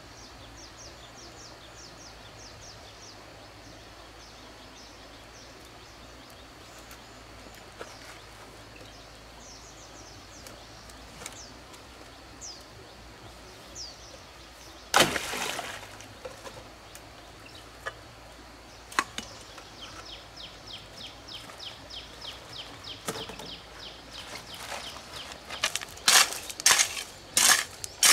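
Outdoor background with faint high chirps, a loud rustling burst about halfway through, then a run of sharp mechanical clicks that grows louder and quicker near the end.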